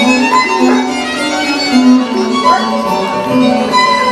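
Instrumental music: a melody of long held notes over accompaniment.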